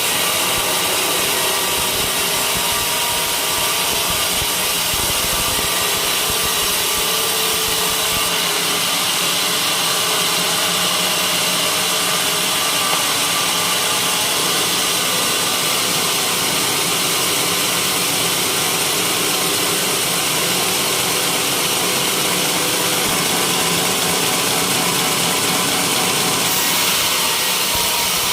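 Sawmill blade cutting through a white teak beam: a steady, loud sawing noise over the running machine. The low rumble thins out about eight seconds in.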